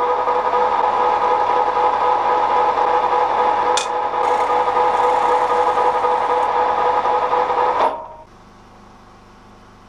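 Metal lathe running with a steady, loud gear whine while a drill bit in the tailstock bores into a spinning fluoroplastic (PTFE) rod, with one sharp click a few seconds in. The whine cuts off suddenly about eight seconds in, leaving a faint low hum.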